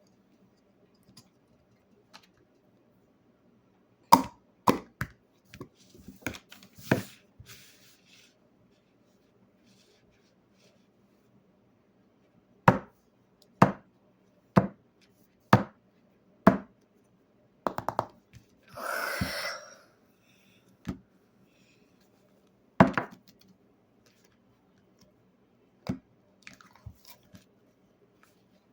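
Slime being pressed and squeezed by hand, making sharp clicking pops. The pops come in a loose cluster, then a run of about one a second, with a brief wetter squelch about two-thirds of the way through.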